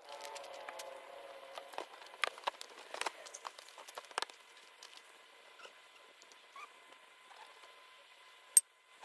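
Hands working on an ATV's carburetor and rubber fuel and vent lines, making scattered clicks, taps and rustles. A brief wavering squeak comes in the first second or so, and a sharp click comes near the end.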